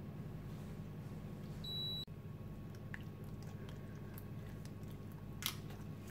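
A spoon spreading tomato sauce over lasagne sheets in a glass baking dish: faint wet squishing with light scrapes and one sharper tap of the spoon about five and a half seconds in, over a steady low hum.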